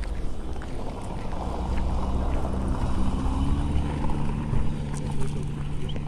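An engine running steadily, its pitch rising slightly partway through and then holding.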